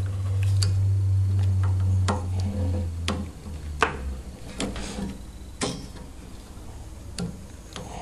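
Sharp, irregular clicks and taps of a small screwdriver prying at a plastic microwave high-voltage fuse holder to open its cover, about seven in all. A low steady hum runs beneath the first three seconds and then stops.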